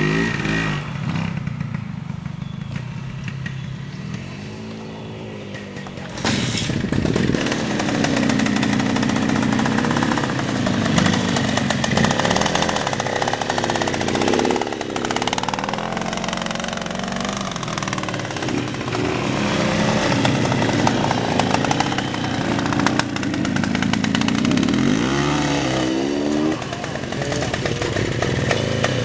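Vintage trials motorcycle engines revving up and down as the riders work the throttle, the pitch rising and falling again and again. The sound jumps louder about six seconds in.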